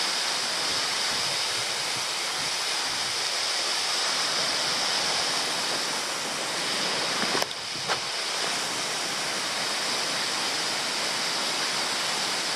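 Steady rushing hiss of a tall waterfall, about 30 metres high. About seven and a half seconds in, a brief click and a short dip in level break it before it carries on as before.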